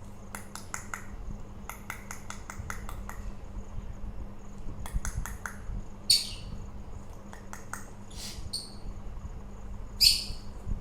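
Pet parakeet clicking and chattering in several short runs of quick clicks, with a few short, harsh calls in the second half.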